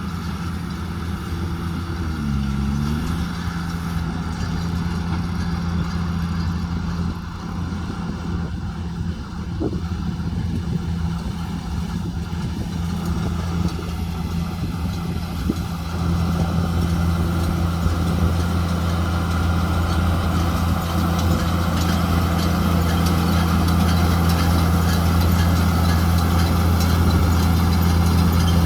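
JCB Fastrac 2170 tractor engine running steadily, its pitch dipping briefly and recovering about two seconds in, and growing louder about halfway through.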